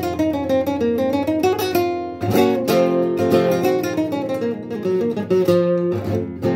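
Acoustic guitar playing an instrumental passage: picked melody notes mixed with several strummed chords.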